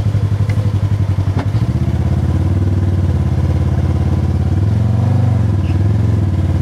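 2022 Polaris RZR Trail Premium side-by-side's twin-cylinder engine running steadily, picking up in pitch briefly about five seconds in. A single knock about a second and a half in.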